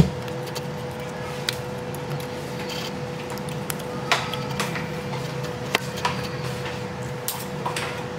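Scattered light clicks and taps from a small precision screwdriver and an iPhone being handled, the loudest right at the start, over a steady low hum.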